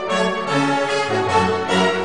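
Orchestral background music, strings and brass, with a bass line moving in short notes.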